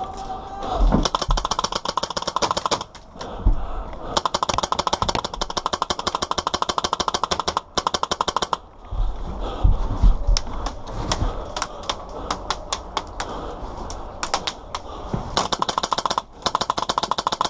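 Airsoft guns firing on full auto: long rattling bursts of rapid shots, three of them, with scattered single shots in between.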